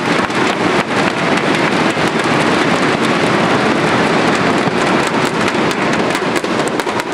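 Crowd beating inflatable thundersticks together in a dense, rapid clatter of claps, loud throughout and starting to die away at the very end.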